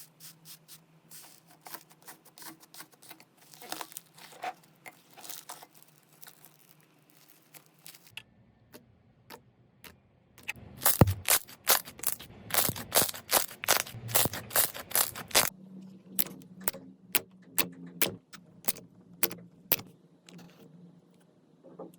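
Slime being squeezed, poked and stretched by hand, giving runs of sharp crackling clicks and pops. The clicks are sparse at first and come thick and loud in the middle stretch.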